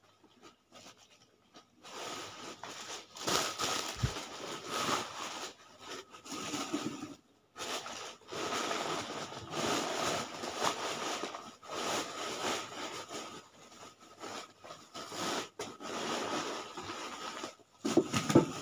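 Medicine packaging being handled, crinkled and torn by hand: a continuous rustling and crackling with many small clicks, starting about two seconds in.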